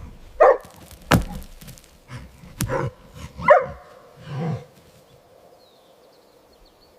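A dog barking twice in short single barks, about three seconds apart, then a lower bark or grunt, with a couple of sharp knocks in between.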